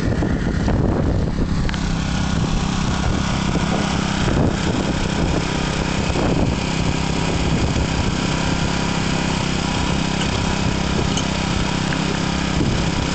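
11 HP Honda gasoline engine of a mini roof cutter running steadily.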